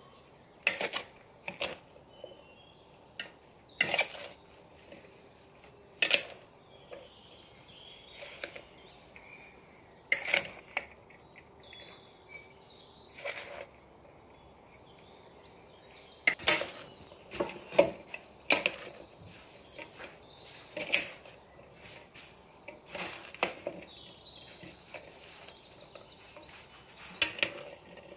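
Salad of lettuce, tomato and corn being tossed with plastic salad servers in a plastic bowl: irregular crisp rustles and knocks of leaves and utensils against the bowl, one every second or two.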